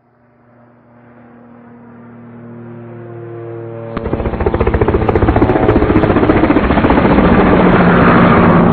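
Helicopter sound: engine tones fade in and grow steadily louder, then about four seconds in a loud, rapid rotor chop takes over.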